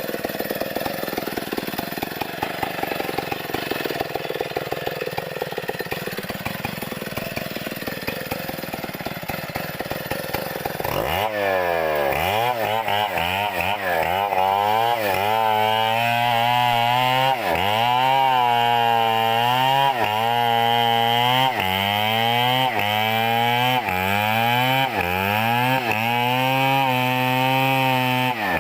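Chainsaw running low and rough, then revving up about a third of the way in and cutting. Its engine pitch repeatedly dips and recovers, about once a second, as it bogs down in the coconut trunk.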